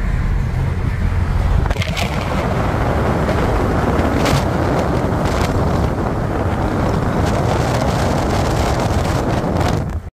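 Road and engine drone of a 2015 Subaru WRX at speed, heard from inside at first. From about two seconds in the phone is held out of the window and loud wind rush over the microphone takes over, mixed with tyre noise. It cuts off suddenly near the end.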